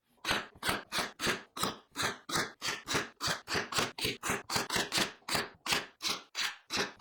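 A hand tool working wood with quick, even back-and-forth scraping strokes, about three a second, such as sawing or sanding by hand.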